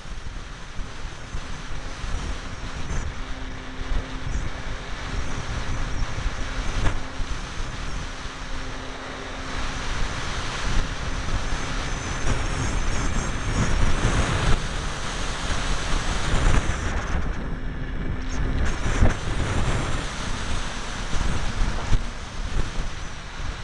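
Wind rushing over the onboard camera's microphone on a ParkZone T-28 Trojan electric foam RC plane in flight, swelling and fading with the gusts. A faint low steady hum from the electric motor and propeller comes and goes under it.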